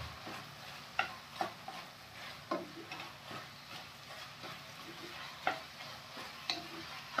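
A spatula stirring and tossing sem (flat beans) and carrots in a stainless-steel kadhai, with separate scrapes and taps against the pan every second or so over a faint sizzle as the freshly added spice powders fry.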